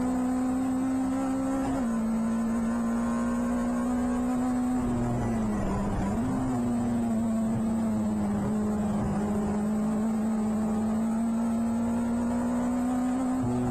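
A Clubman Seven-style race car's engine heard from onboard, held at high revs under power. Its pitch dips briefly about six seconds in, climbs slowly after that, and drops sharply right at the end.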